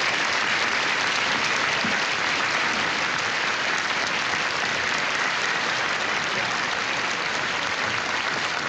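Audience applauding, a dense steady clapping that eases off slightly near the end.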